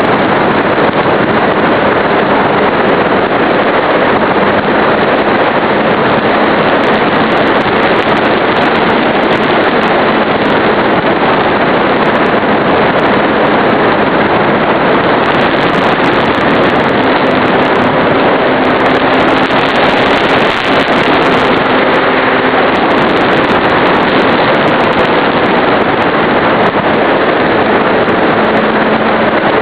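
Electric brushless motor and propeller of an RC model plane in flight, heard on board: a loud, steady rush of wind and prop noise with a faint motor tone that shifts in pitch now and then as the throttle changes.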